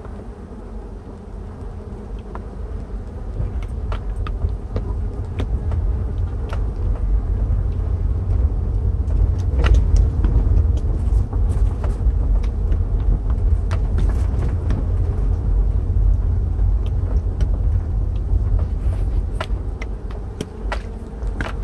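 Steady low road rumble inside a moving car, over which a colony of Korean native honeybees in a box on the front seat makes a rushing sound like waves or running water, with scattered light clicks.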